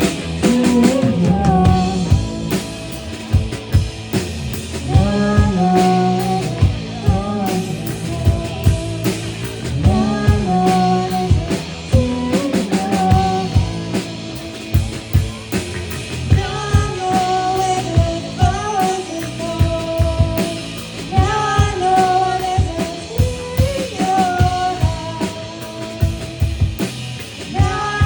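Dream-pop band music: a drum kit keeping a steady beat under sustained melody lines.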